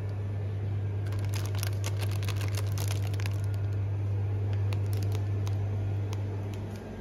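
Plastic ice-cream bar wrappers crinkling in the hand for about two seconds, starting about a second in, with a few light clicks afterwards, over a steady low hum.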